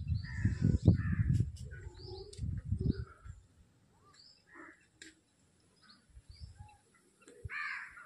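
Crows cawing several times, the loudest caw near the end, while smaller birds give short chirps. A low rumble on the microphone fills the first three seconds.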